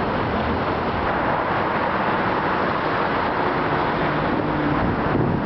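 Steady rush of road traffic noise with no distinct single event; a faint low hum joins a few seconds in.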